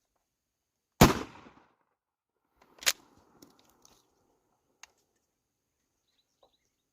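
A single pump-action shotgun shot fired into the air about a second in. About two seconds later comes a quieter sharp clack with a short rattle, then a few light ticks.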